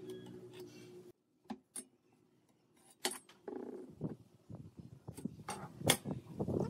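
Clicks and light clinks of a metal carpenter's square and a pencil handled on a pine board, with some scraping, the sharpest click near the end. A steady low hum cuts off about a second in.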